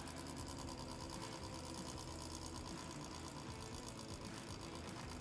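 Hydraulic torque drive head running steadily as it screws a helical pier shaft down into the soil, a continuous mechanical whirr with a fast, even pulse.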